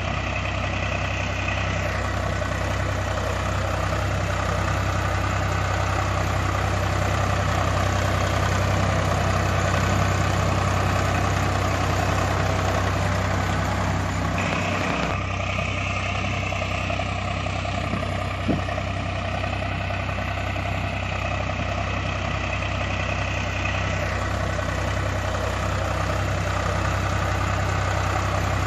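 Tractor engine idling steadily with an even low chug. A single short click sounds about two-thirds of the way through.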